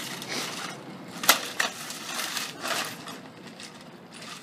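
Plastic chassis and circuit board of a smashed CRT television cracking and snapping as they are pulled and broken apart by hand, with a sharp snap about a second in and a smaller one just after.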